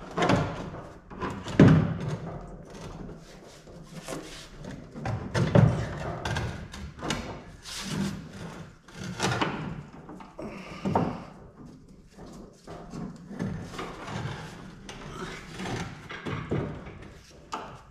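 Irregular clanks, knocks and clatter of hand work under a car, as tools and metal parts are handled while a fuel tank is worked loose and lowered. Two louder knocks come about one and a half and five and a half seconds in.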